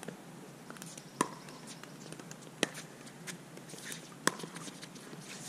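Pickleball paddles hitting the plastic ball in a rally: three sharp pops about a second and a half apart, with fainter taps between.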